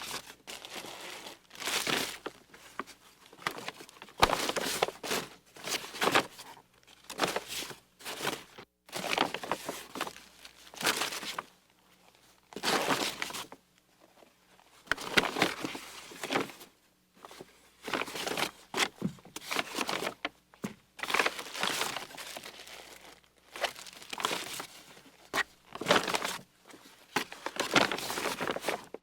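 Plastic shopping bags rustling and crinkling as groceries are packed into them, in irregular bursts of crackling with short pauses between.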